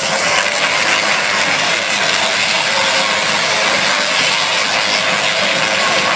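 Two large Tesla coils firing, their electric arcs giving a loud, steady crackling buzz.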